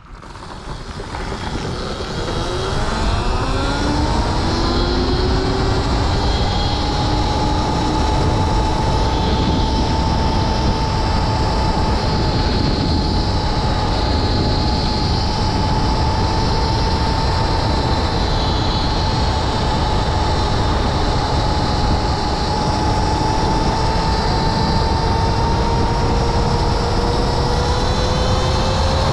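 A DIY electric motorcycle accelerating: the motor's whine rises in pitch for the first several seconds, then holds nearly steady at speed, edging up slightly near the end. A heavy rush of wind noise runs under it.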